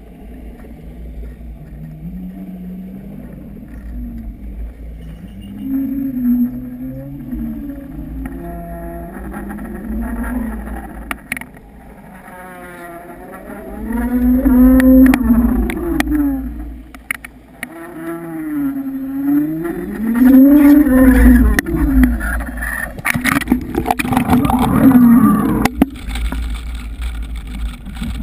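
Boat motor heard underwater, its pitch rising and falling in slow swells every few seconds over a steady low rumble, with a few sharp clicks in the second half.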